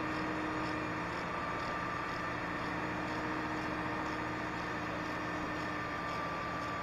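Grove hydraulic crane's diesel engine running steadily, with a steady whine above the engine note.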